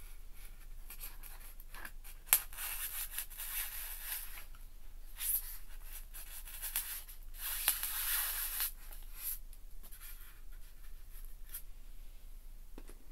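Scratchy rubbing and scraping from hands and a thin wooden stick working against a styrofoam board and a pinned fish specimen. It comes in irregular spells, with a sharp tap about two seconds in, and dies down over the last few seconds.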